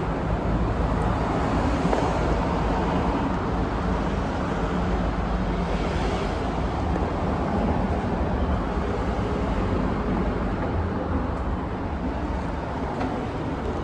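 Steady low rumble and hiss of underground station background noise, even throughout, with no chime, announcement or other distinct event.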